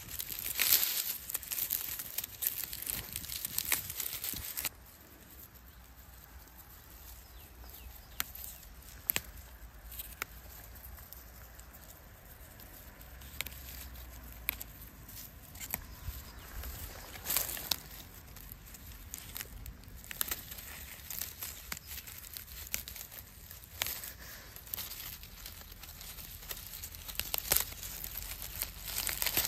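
Irregular rustling and crackling, with scattered sharp snaps, of fiddlehead fern stems and fronds being handled and broken. It is busier and louder for the first few seconds, then goes on more sparsely.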